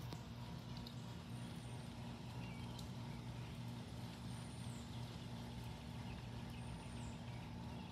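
Steady low hum under a faint even hiss of outdoor background. A short, high arched chirp comes three times, about two and a half seconds apart.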